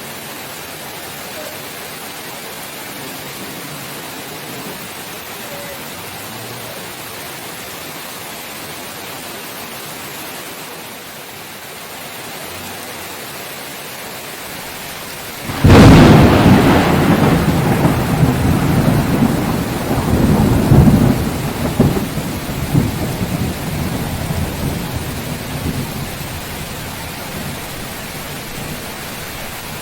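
Steady rain, then about halfway through a sudden thunderclap that rumbles on, swells again a few seconds later, and dies away under the rain.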